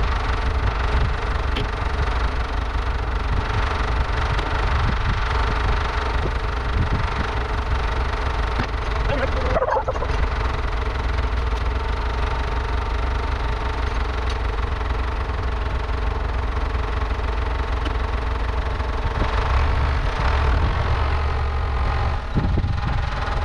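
Frontier OS27 portable bandsaw mill running steadily, its petrol engine under load as the band blade cuts through a Douglas fir log. There is a brief falling whine about ten seconds in.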